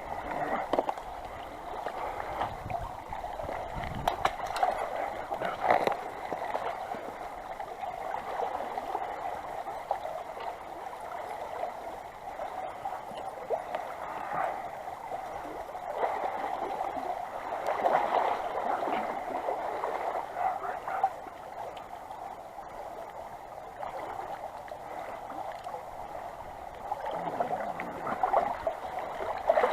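Small creek running and gurgling, a continuous babbling rush of water, with brief low rumbles of wind on the microphone a few seconds in.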